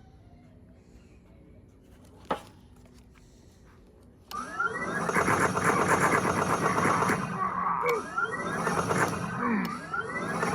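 Many BRX laser tag rifles playing their electronic firing sound effects at once, a dense jumble of overlapping falling 'pew' tones that starts abruptly about four seconds in. Before it, a single sharp click.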